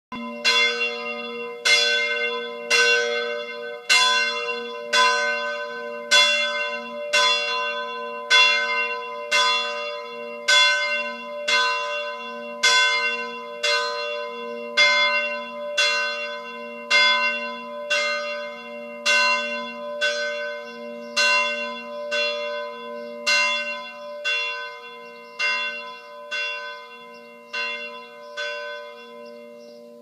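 Bell tower bell ringing, struck about once a second in a steady series, each stroke ringing on with a lingering hum beneath. The strokes grow softer over the last few seconds.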